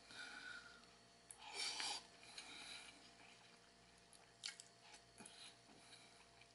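Faint eating sounds: wooden chopsticks clicking against a paper takeout bowl, with quiet chewing, and a short soft rush of noise about a second and a half in.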